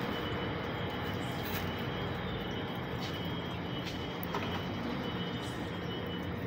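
Steady machine hum and rumble with a few faint clicks.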